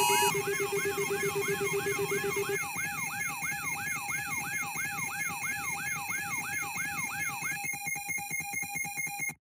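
Synthesized electronic alarm tone: a rapid repeating pitch sweep, about three a second, over steady held tones. Near the end the sweeps give way to a fast buzzing pulse, then the sound cuts off suddenly.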